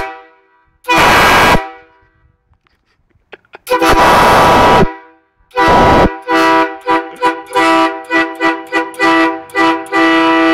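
Aftermarket train horn fitted to a Mitsubishi Pajero, sounding several tones at once and very loud. Three separate blasts, the middle one the longest, then a quick run of short toots, about two a second, ending in a longer blast.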